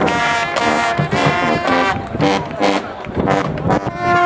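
Marching band brass section playing a lively tune outdoors in short, punchy notes, with the sousaphones' low notes under the trumpets and trombones.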